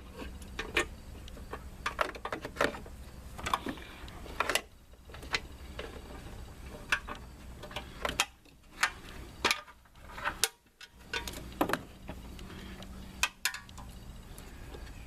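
Hand ratchet and socket running bolts back in by hand: sharp, irregular clicks and metal clinks, a few each second, over a steady low hum.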